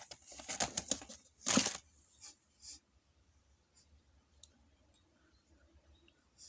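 A man's single loud sneeze about a second and a half in, preceded by a few short sharp noises and followed by two short faint hisses.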